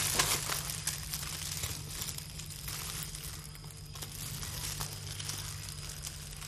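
Plastic-bagged foil balloons being handled, crinkling and rustling with small scattered clicks, over a steady low hum.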